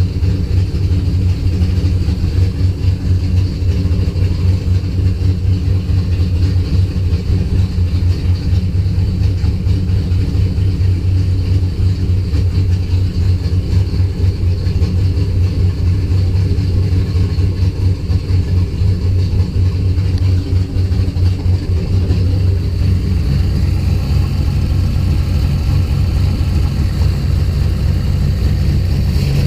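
Car engine with a coil-and-distributor ignition running at a rough idle, a steady, pulsing low running note.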